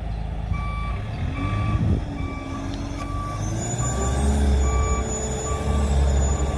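Vehicle reversing alarm beeping steadily, a little faster than once a second, over the running diesel drone of the Sherp 10x10. The engine note rises and grows louder about four seconds in as the vehicle pulls away.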